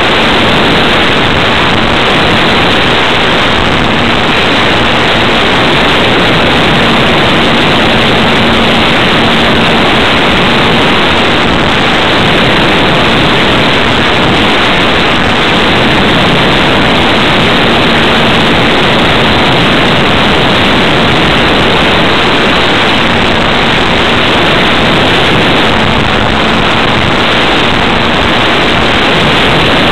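Steady, loud rush of wind over the onboard camera's microphone on a ParkZone T-28 Trojan electric RC model plane in flight, with a faint hum from the electric motor and propeller that fades in and out.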